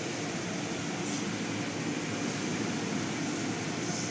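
Automatic car wash running, heard from inside the car: a steady rush of water spray and wash machinery, with a brief hiss about a second in.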